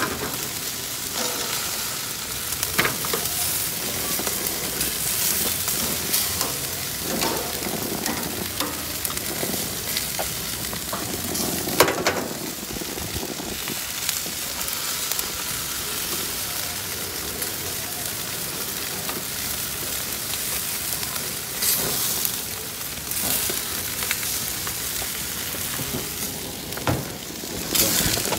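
Meat sizzling on a Nexgrill grill, a steady crackling hiss, with a few sharp clicks now and then.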